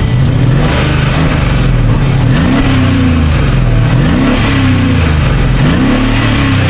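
Mercedes-Benz car engine running after a repair, revved up three times and falling back toward idle between the revs.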